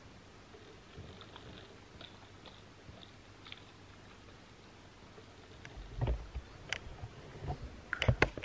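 Faint light clicks as a baby bottle of milk is shaken by hand, then a run of louder knocks and thumps from a handheld camera being carried, the loudest cluster near the end.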